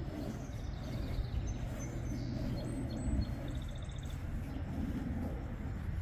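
Songbirds chirping and giving a short fast trill several times over a steady low rumble.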